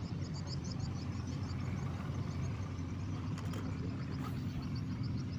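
A steady low engine drone, with a quick, repeated high chirping running over it.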